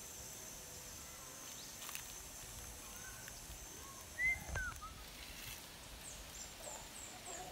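Rural daytime ambience: a steady high insect drone that stops about halfway through, a few short whistled bird calls around the middle, then a quick series of short high chirps near the end.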